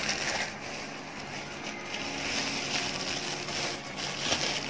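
Plastic shopping bag and cellophane wrapping rustling and crinkling as a wrapped item is handled, with sharper crinkles near the end.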